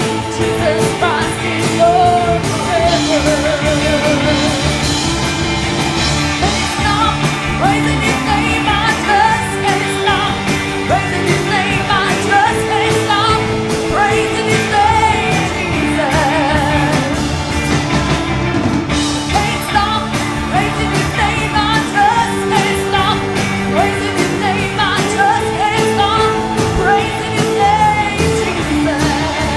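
Pentecostal worship music: a live band with singing over sustained chords and a steady beat.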